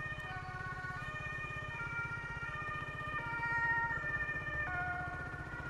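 Aprilia RS 125's single-cylinder engine idling steadily. Music of held notes that change pitch every second or so plays over it.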